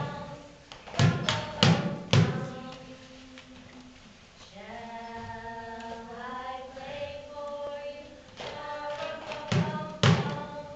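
Loud sharp knocks in quick runs of three or four, near the start and again near the end, from a toddler beating a small percussion instrument with a stick. In between, young children sing a few drawn-out notes of a song.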